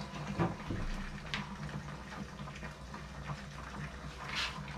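Stew with tomatoes cooking in a pot on the stove: soft bubbling and small scattered pops over a steady low hum, with a brief brighter hiss near the end.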